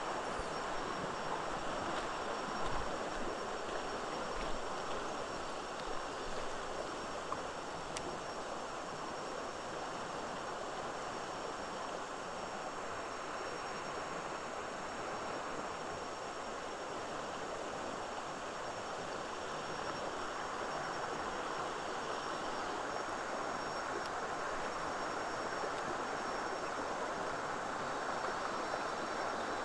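A rocky forest stream rushing over rock ledges and small riffles, a steady even rush of water. A few faint knocks come in the first several seconds.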